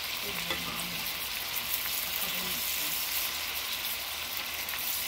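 Deer tenderloin sizzling steadily in olive oil and butter in a cast-iron skillet: a dense hiss with scattered small crackles.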